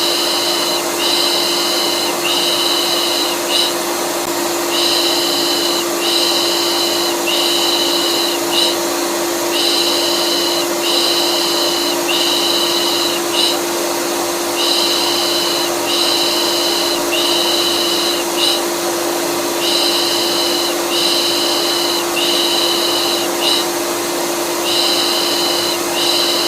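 A vacuum cleaner runs steadily with a constant hum. Over it, soothing 'pış pış' shushing for a baby repeats in a loop: three drawn-out shushes and one short one, about every five seconds.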